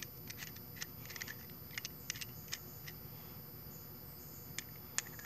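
Light clicks and taps of a small metal herb grinder being handled, its parts knocking together in the fingers. The clicks come thickly through the first three seconds, then only a few more near the end.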